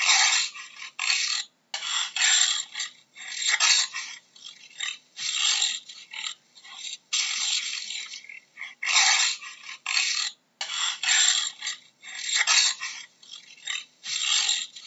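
Jaguar's sawing call: a long series of harsh, noisy grunts, about one a second, with short pauses between them.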